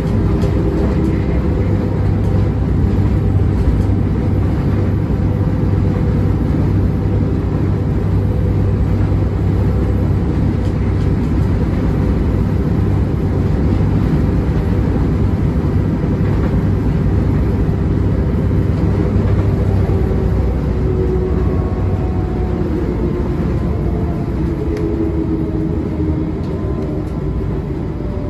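Inside a city bus cruising on a highway: steady engine rumble and road noise, with a faint whine that sinks slightly in pitch near the end.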